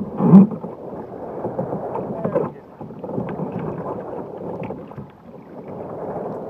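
Choppy waves sloshing and slapping against a Jackson Cuda 14 sit-on-top kayak, with wind rumbling on the microphone, as a person in a drysuit clambers back aboard from the water. A loud thump about half a second in, with smaller knocks after.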